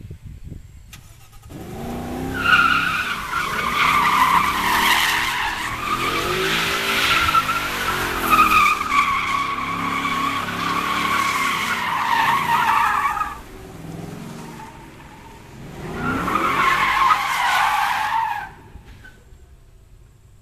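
2014 Ford Mustang GT's 5.0-litre V8 revving, its pitch rising and falling, with the rear tyres squealing as it spins donuts: one long stretch of about eleven seconds, a lull, then a shorter burst of about two seconds.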